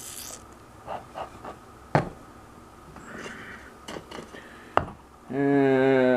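Sharp clicks and knocks of a steel pistol barrel and parts being set down and stood upright on a workbench, the loudest knock about two seconds in. Near the end a loud, steady pitched whine begins.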